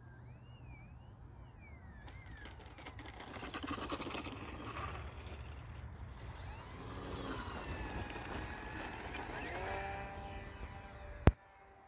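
Small electric motor of an E-flite UMX Waco radio-controlled biplane whining, its pitch rising and falling with the throttle. One sharp click near the end.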